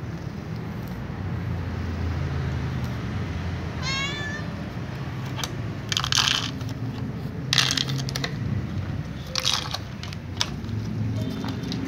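A domestic cat meows once, a short rising call about four seconds in. Three short crinkly scraping noises follow, from food being handled in plastic dishes, over a steady low hum.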